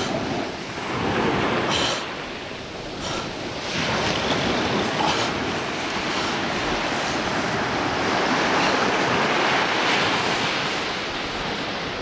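Surf washing onto the beach, a steady rush that eases a little a few seconds in and then builds again, with some wind on the microphone.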